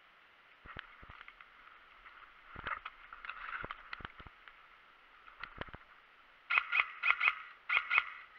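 Twigs and brush rustling and snapping as the wearer pushes through undergrowth and settles into long grass. In the last two seconds come the loudest sounds: a run of short, sharp call-like cries in quick pairs.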